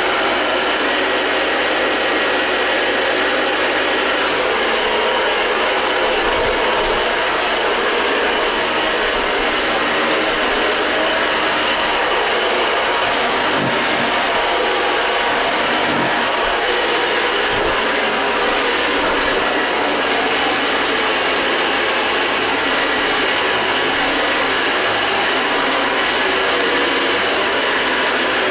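Hoover Model 707 Convertible upright vacuum cleaner running steadily: an even, loud motor-and-fan noise.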